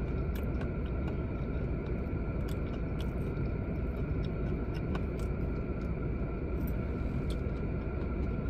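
Steady low rumble and hum of a car at idle, heard from inside the cabin, with a faint steady whine over it. Scattered light clicks and ticks come from food being chewed and handled.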